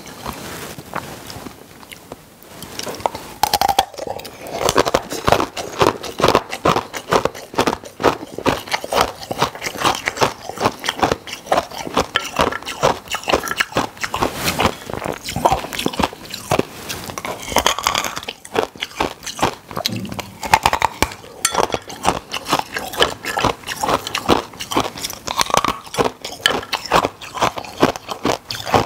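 Ice being bitten and crunched between the teeth, close to the microphone: a rapid, continuous run of sharp cracks and crunches that grows dense about four seconds in.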